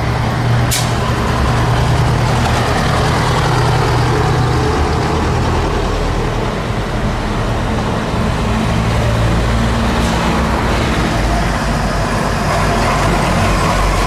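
Old lorries and vans driving past one after another, their engines running with a steady low rumble that swells and changes as each one goes by.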